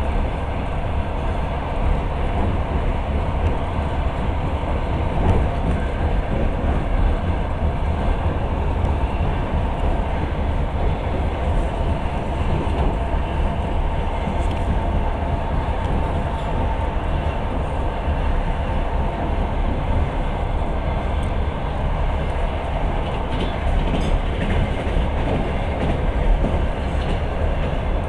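Passenger train running at speed, heard from aboard the carriage: a steady rumble of wheels on rails, with a few faint clicks now and then.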